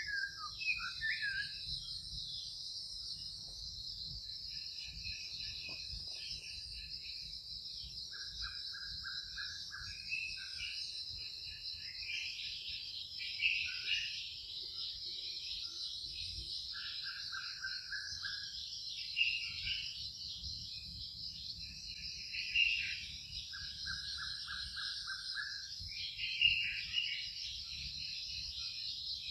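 Steady chorus of insects making an even, high-pitched drone, with birds chirping and calling over it. A short buzzy trill of quick repeated notes comes three times, with louder single chirps between.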